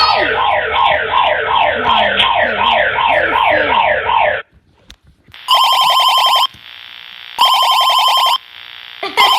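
Emergency alert alarm played back: a loud tone of rapidly repeating falling sweeps, about three a second, that cuts off after about four seconds. After a short pause a telephone-style ring follows in one-second bursts about two seconds apart.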